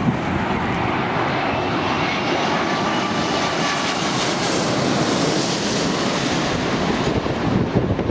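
Jet airliner passing low overhead on final approach to land: a steady engine noise with a faint whine that swells to its loudest around halfway through and then eases off.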